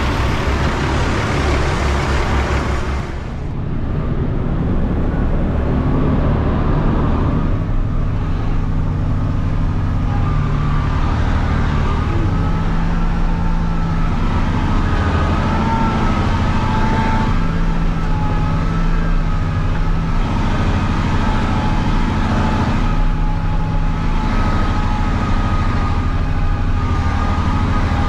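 Diesel engine of heavy earthmoving equipment running steadily, with a thin wavering whine over the engine note from partway through. The sound dips briefly about three seconds in.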